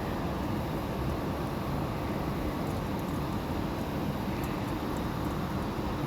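Steady rushing outdoor background noise with no distinct events, heaviest in the low end.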